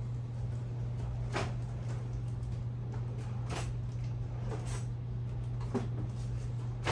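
Light knocks and clatter of cookware being handled, about four or five short strikes a second or so apart, over a steady low hum.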